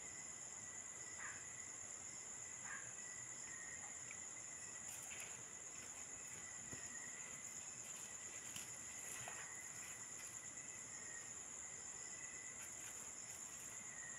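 Crickets and other insects trilling steadily and faintly in a high pitch, with a second, lower steady trill beneath, and a few faint clicks.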